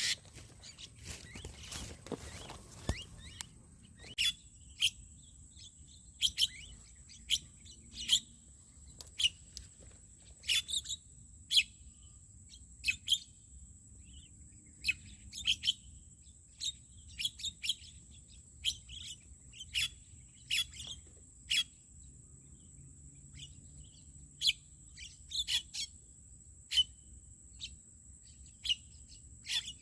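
Birds chirping in short, sharp calls that repeat one or two times a second, over a steady high-pitched tone. A brief rustle sounds in the first few seconds.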